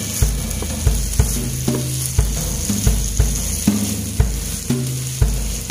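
Sambal of anchovies and petai beans stir-fried in a pan: oil sizzling while a wooden spatula stirs and scrapes through it. A low, rhythmic bass beat runs underneath.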